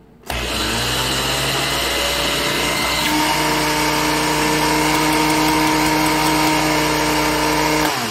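Countertop blender grinding oats into a powder (oat flour). The motor starts abruptly and speeds up, its tone changes about three seconds in, and it winds down near the end after running for about seven and a half seconds.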